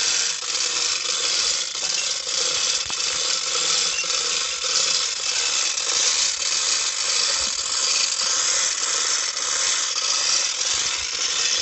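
Manual chain hoist being worked: its steel chain rattles and clinks through the block over a steady high hiss.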